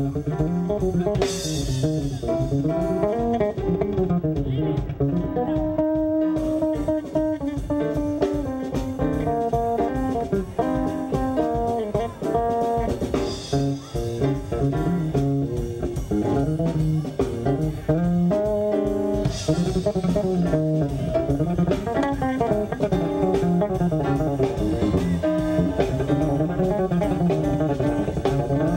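Live blues band playing a B-flat blues, with electric bass guitar lines over a drum kit; cymbals crash a few times.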